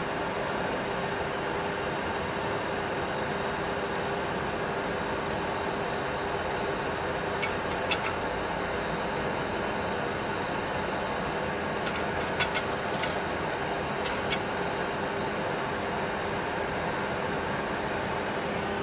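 Steady cockpit hum and airflow noise in a Boeing 737 Classic full flight simulator, with a few faint clicks of switches or controls about halfway through.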